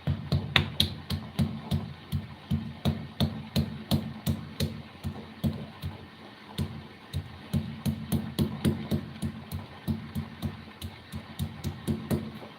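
Rapid, rhythmic knocking strikes in food preparation, about three a second, each a dull thud with a sharp click. They ease off briefly about halfway through.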